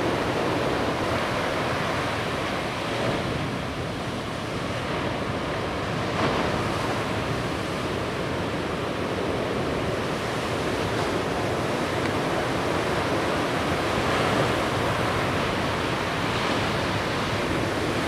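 Ocean surf breaking and washing in as whitewater: a steady rushing noise.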